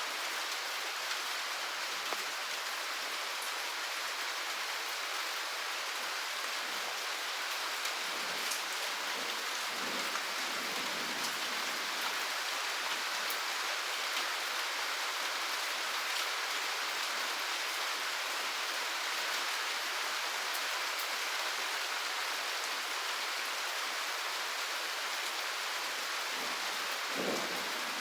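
Steady rain falling and pattering on surfaces, an even hiss with scattered drop ticks; a brief low swell comes just before the end.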